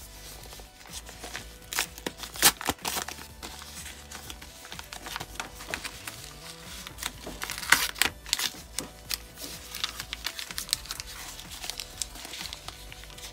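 A paper mailing envelope being torn open and crinkled by hand: irregular sharp crackles and rips, the loudest about two and a half seconds in and again near eight seconds. Soft background music runs underneath.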